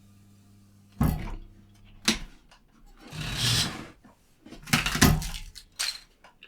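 Hot-wire foam cutter humming faintly, the hum stopping about two seconds in after a couple of knocks, followed by handling of the foam sheet stack and cutter fence: several sharp knocks and a rustling scrape of foam.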